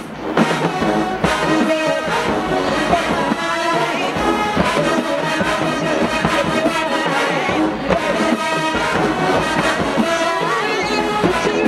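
Marching band playing, full brass section carrying the tune over steady drum beats.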